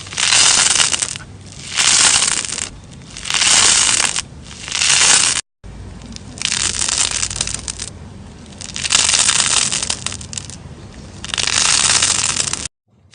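Crunchy sponge slime squeezed and pressed by hand, crackling and crunching in about seven squeezes, roughly one every second and a half, with a sudden cut about halfway through.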